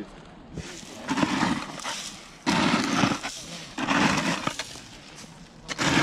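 Gravel ballast being shovelled into holes dug under the tram track: four rough scraping scoops about a second apart.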